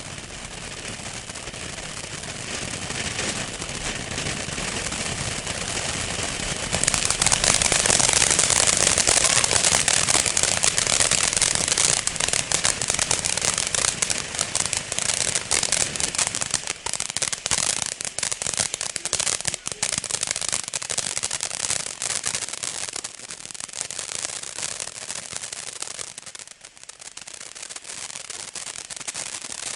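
Planet X 'Happy Birthday' 500-gram fireworks fountain burning: a steady spraying hiss that swells, then about a quarter of the way in turns louder with dense crackling, thinning out and dipping near the end.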